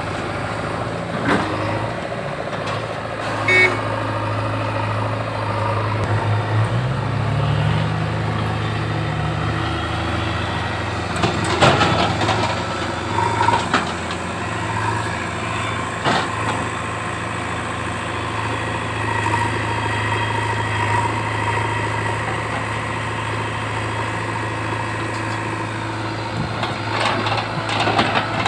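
Heavy diesel engine of earthmoving machinery running steadily, speeding up for a few seconds about seven seconds in and then settling back. A few sharp clanks and knocks of metal are heard along the way.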